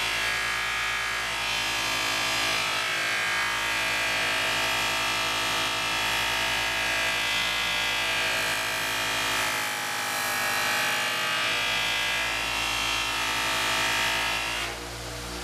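Electric sander, used as a buffer, running steadily with a polishing pad spinning against the steel hatchet head. The whine and scrub of pad on metal swells and fades as the head is pressed and moved across the pad.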